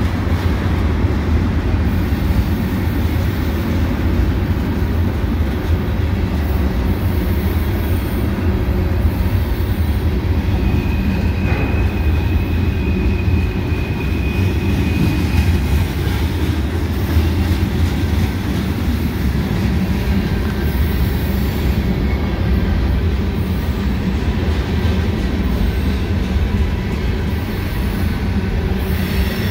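Freight cars (tank cars and covered hoppers) rolling past close by, a steady rumble of steel wheels on rail. About ten seconds in, a high steady wheel squeal runs for some five seconds, with a single knock early in it.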